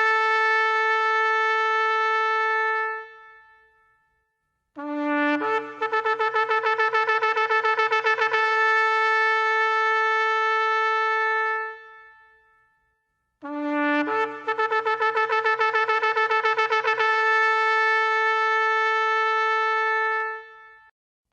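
Shofar (ram's horn) sounding long blasts: the end of one held note fades out, then two more long blasts follow, each opening on a short low note that jumps up to a higher note held for about six seconds before fading away.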